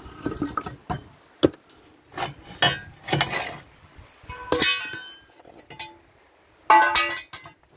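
Irregular metal clinks and knocks, several ringing briefly, with rustling of the plastic wrapping, as a hydraulic pump is turned against an engine's bell housing to line up its bolt holes. The loudest is a ringing clank near the end.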